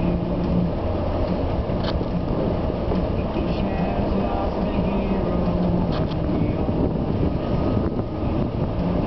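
Steady low engine rumble heard from inside a car, with a faint humming tone and a few light clicks.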